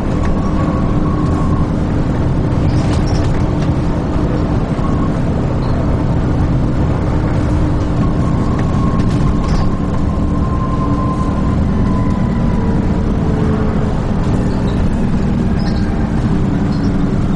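Dennis Trident 2 double-decker bus under way, heard from on board: steady engine drone and road rumble with a faint whine and occasional light rattles.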